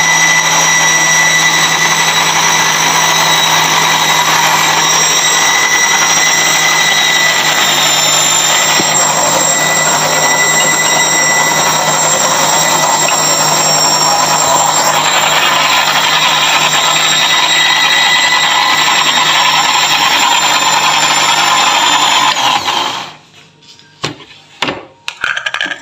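Deuron electric blender motor running steadily at full speed, grinding fresh mint and coriander leaves with lemon juice into a fine green chutney. It switches off suddenly near the end, followed by a few light knocks.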